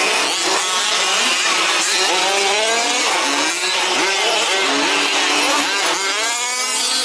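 Several 1/5-scale RC off-road racing trucks running together, their small two-stroke petrol engines revving up and down so that several engine notes overlap, rising and falling.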